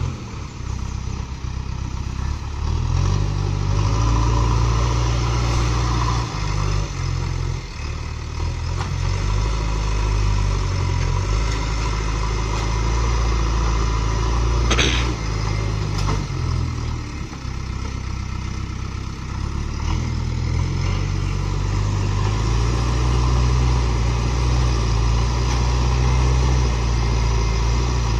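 JCB backhoe loader's diesel engine running, its note rising and falling as the machine works, with a single sharp knock about halfway through.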